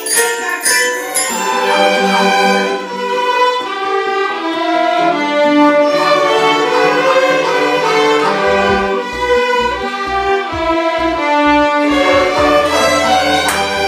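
Children's school orchestra playing live: violins and cellos hold the tune in sustained notes, with flutes. A low, steady drum beat joins about two-thirds of the way in. The first second carries the last struck notes of glockenspiels.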